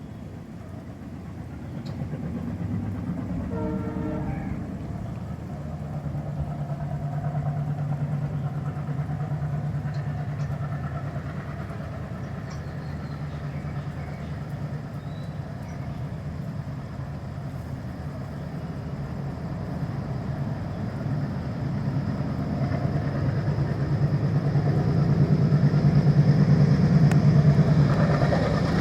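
Twin Alco WDG-3A diesel-electric locomotives approaching, their diesel engines chugging with a steady low note that grows louder as they near. A brief horn note sounds about four seconds in, and a thin high whine joins about halfway.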